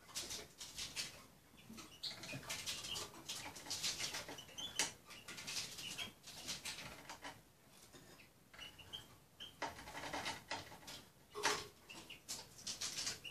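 Small songbird pecking at food in a glass bowl: irregular clicks and taps of its beak and feet on the glass, with scratchy rustling as it picks through the pieces, quieter for a couple of seconds in the middle.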